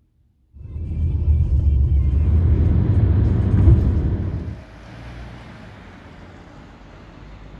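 Steady low road rumble inside a car moving at speed. It starts abruptly about half a second in and, a little past the middle, drops sharply to a quieter, even outdoor background hum.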